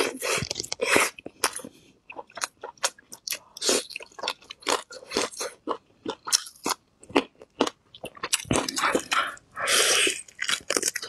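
Close-miked chewing and biting of braised beef ribs: a quick, irregular run of short wet mouth clicks and chews. Near the end comes a longer, denser stretch as meat is bitten and torn from a rib.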